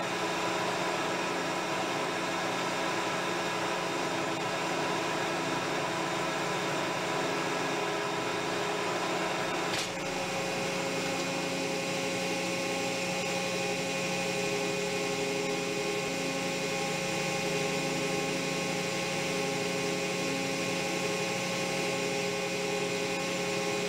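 Metal lathe running steadily, its motor and gear train giving a constant multi-tone hum and whine, while a light facing cut is taken on a small metal tube. A single click about ten seconds in, after which the tone changes slightly.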